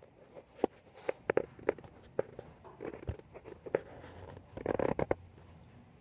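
Green-cheeked conure preening, with sharp beak clicks and small crunching nibbles at its feathers. The clicks are scattered, most in the first two seconds, and there is a short rustle of feathers about five seconds in.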